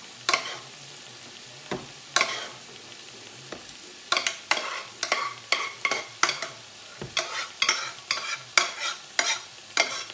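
A spoon scraping and knocking cooked squash out of a saucepan into a blender. A couple of single strokes come first, then quick repeated scrapes about twice a second from about four seconds in.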